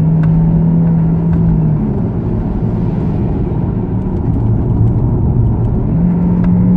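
Jaguar XF's 3.0-litre naturally aspirated petrol engine growling, heard inside the cabin while driving. Its note holds, drops lower about two seconds in, then climbs again near the end.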